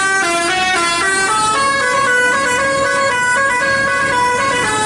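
Bus telolet horn, a multi-tone air horn playing a melody: loud held notes that step up and down in pitch without a break.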